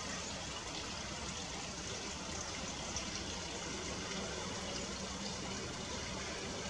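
Steady outdoor rushing noise, even throughout with no distinct events.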